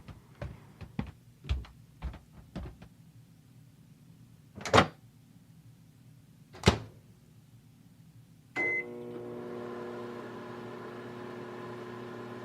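A series of light clicks and knocks, then two louder sharp knocks. About eight and a half seconds in, a short beep, and a microwave oven starts running with a steady hum, heating the frozen lasagna.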